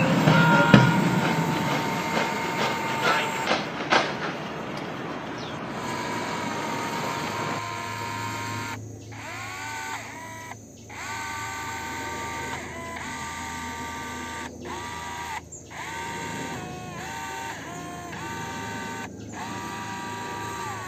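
Electric drive motors of a 1/35-scale RC Sherman tank model whining as it drives. The whine stops briefly several times and rises in pitch each time the tank starts off again.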